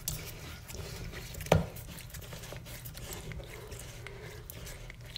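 Handling noise as a towel is pressed around a toilet's just-disconnected water supply line and the line is gripped by hand: scattered small clicks and rubbing, with one sharp knock about a second and a half in.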